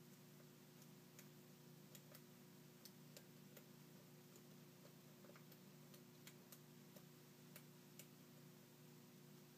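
Faint, irregular light clicks of lock picks working the pins of a Bilock lock, a few a second, over a steady low hum.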